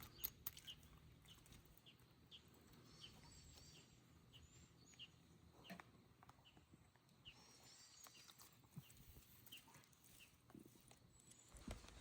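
Faint, even footsteps on a wet path while walking, about one and a half steps a second.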